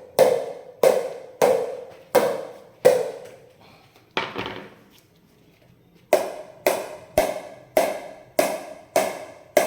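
A pickleball being struck again and again with a budget pickleball paddle, each hit a sharp pop with a short ringing tail. There are five pops about two thirds of a second apart, a pause of about three seconds broken by one softer knock, then the pops resume a little faster, seven of them.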